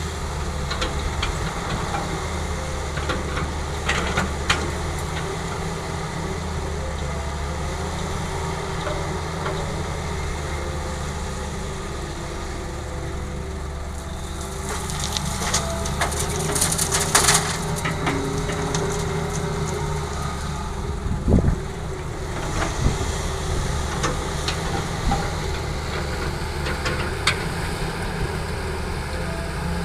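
Heavy diesel machinery running steadily while an excavator loads rocky soil into a dump truck. Scraping, clattering and knocking of rock and earth come now and then, heaviest in a burst about halfway through and a sharp knock soon after.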